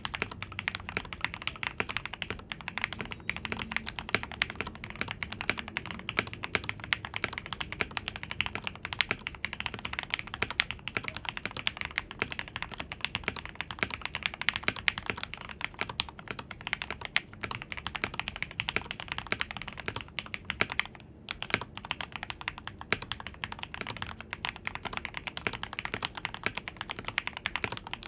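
Continuous fast typing on a Royal Kludge RK84 mechanical keyboard with lubed Gateron Milky Yellow linear switches, foam-dampened case and PBT keycaps: a dense stream of keystroke clicks, with a brief pause about three-quarters of the way through.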